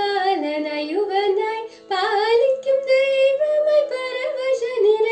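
A high-voiced singer sings a slow, heavily ornamented Carnatic melodic phrase in raga Reethigowla over steady held accompanying tones, with a short breath about two seconds in.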